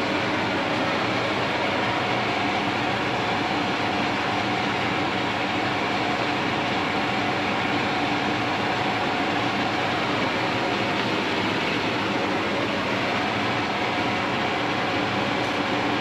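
Roll-off truck's diesel engine running steadily under load while its hydraulic hoist tilts and sets down a loaded debris container: an even drone with a steady hum, no breaks or knocks.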